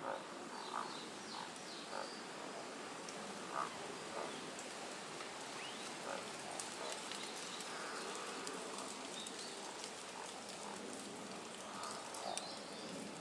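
Male Tago's brown frogs giving their courtship calls from rock crevices: short, low croaks at irregular intervals, each about a second or more apart, over a steady hiss of a mountain stream.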